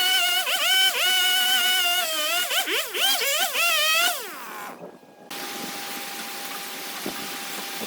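Background music, a single wavering melodic line, fades out about four seconds in. After a brief gap, a wood lathe's steady hiss and faint constant hum begins.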